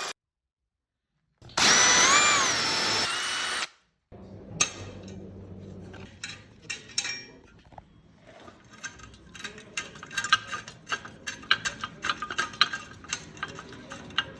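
A power drill runs in one burst of about two seconds, its motor pitch rising and then falling. This is followed by lighter scattered clicks and knocks of parts being handled.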